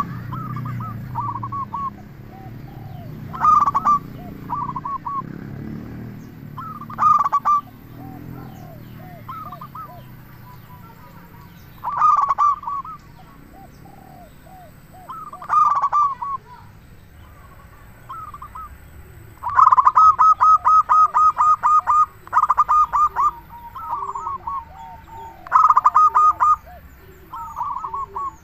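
Zebra doves (perkutut) singing: loud bursts of rapid, stuttering cooing notes every few seconds, with one longer run of fast repeated notes about two-thirds of the way in, and fainter, lower cooing notes between the bursts.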